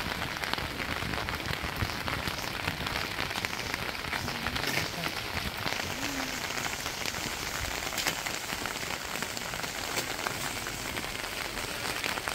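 Steady rain falling: a dense patter of drops, with many small sharp ticks.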